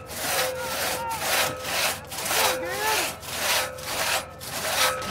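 Two-man crosscut saw being pulled back and forth through a large log, about two cutting strokes a second, with a thin ringing tone through the strokes.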